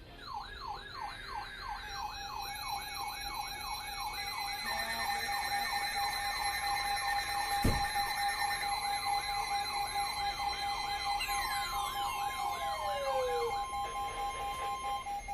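Electronic siren wailing in a fast up-and-down sweep, about two to three times a second, over a steady electronic tone. There is a sharp click about halfway through, and a few falling tones slide down near the end.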